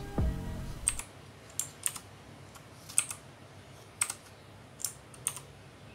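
Redragon K552 Kumara mechanical keyboard with single keys pressed one at a time: about seven sharp clacks, spaced irregularly roughly a second apart, starting about a second in.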